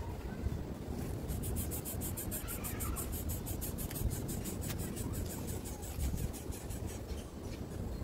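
Wind rumbling on the microphone, with a rapid, even, high-pitched ticking of about eight ticks a second from about a second in until about halfway.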